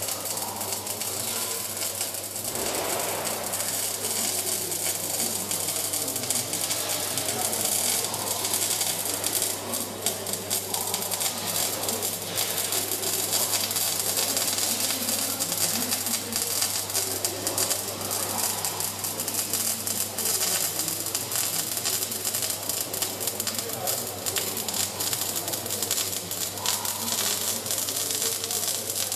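Robotic welding arc crackling and sizzling steadily, with a steady low electrical hum underneath.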